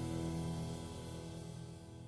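Background instrumental music fading out, its held notes dying away.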